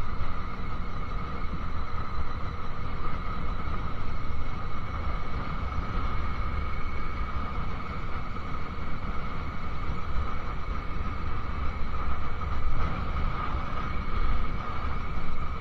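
2001 Honda CBR600 F4i's inline-four engine at a steady cruise, with a low wind rush on the microphone over an even engine drone that neither rises nor falls.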